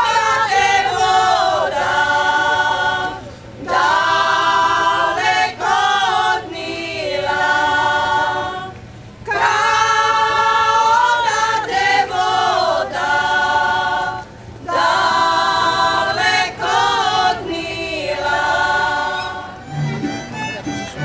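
Women's folk choir singing a cappella in long phrases with short breaks between them. Near the end a tamburica string band starts to play.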